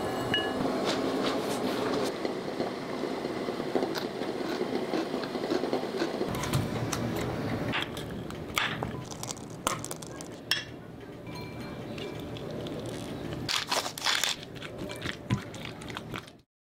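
Shredded cabbage and carrot crackling and rustling as bare hands toss and squeeze it in a glass bowl. After about six seconds this gives way to scattered clicks and taps of a spoon in a ceramic bowl, and the sound cuts off just before the end.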